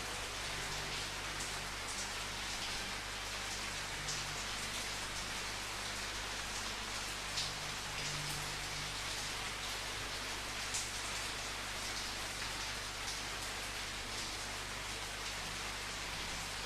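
Steady rain falling, a continuous hiss with scattered sharper ticks of individual drops striking a surface.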